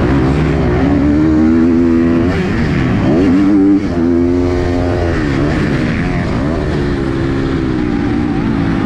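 KTM 250 SX-F four-stroke single-cylinder motocross engine at race pace, its revs climbing, holding and falling back several times as the throttle is opened and closed. There is a brief sharp dip in level about four seconds in.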